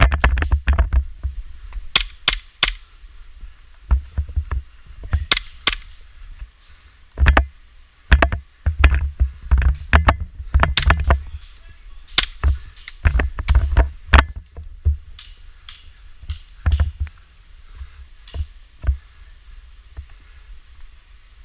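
Airsoft pistols firing, sharp snapping shots in scattered singles and quick pairs or clusters, over a steady low rumble.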